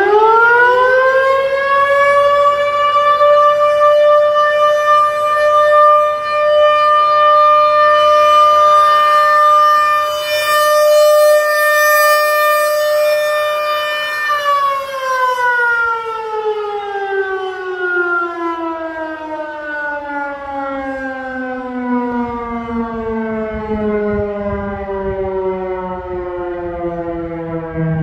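ACA Penetrator-20 rotating tornado siren, with a 7.5 HP DC motor and 9-port chopper, sounding its steady alert signal as a test. It winds up quickly to a steady high tone and holds it for about fourteen seconds, swelling and fading slightly as the horn rotates, then shuts off and winds slowly down in pitch.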